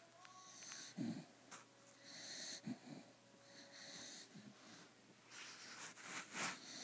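Snoring in slow repeated breaths: short low rattles, the loudest about a second in and another near three seconds, alternating with airy hissing breaths, with a longer hissing breath near the end.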